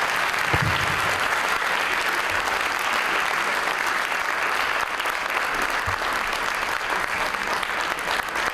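Audience applauding steadily, with two brief low thumps, one about half a second in and one near six seconds.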